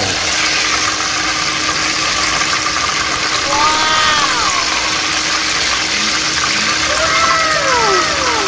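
Hot oil sizzling steadily as battered chicken proventriculus (proben) deep-fries in a pan, with a faint steady hum underneath.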